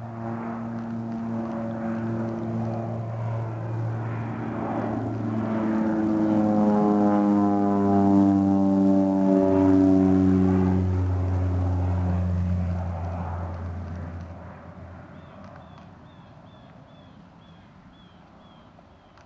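Crop-duster airplane flying low overhead, its propeller engine droning louder as it approaches. The drone peaks about eight to ten seconds in, drops in pitch as the plane passes, and then fades away.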